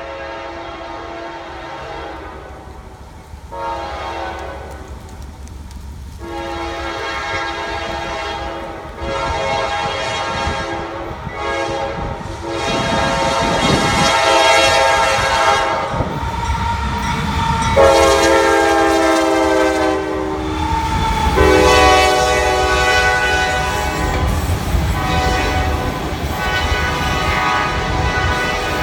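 CSX freight locomotives sounding their air horn in several long blasts for a road crossing, the locomotives rumbling past loudly partway through. Near the end the auto rack cars roll by with wheel clatter on the rails.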